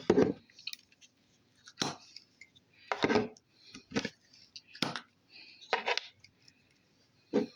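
Slime being squeezed and worked by hand, giving short squishing, crackling sounds about once a second.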